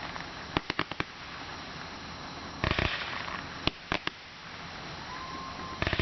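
Fireworks going off: a run of sharp pops and crackles in several short volleys, a second or two apart.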